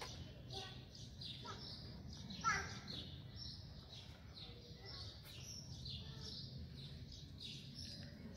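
Kitten mewing, with one loud, high, falling mew about two and a half seconds in, over small birds chirping and a steady low background hum.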